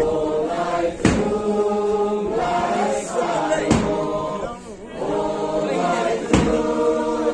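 A group of voices singing a chant together in long held notes, phrase after phrase with brief breaks, with a sharp beat about every two and a half seconds.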